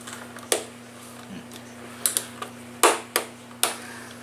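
Sharp, irregular clicks of a Torx screwdriver working at a screw in a leaf blower's plastic fan housing, about five in all, most of them bunched in the second half, over a steady low hum.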